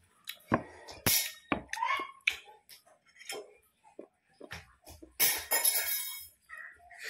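Close-up mukbang eating sounds: chewing and crunching crispy fried chicken and rice in irregular bursts, the loudest about a second in and again about five seconds in, with light clicks of fingers against a ceramic plate.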